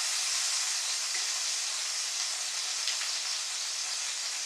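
Sausages sizzling in a frying pan, a steady hiss, with a faint click about three seconds in.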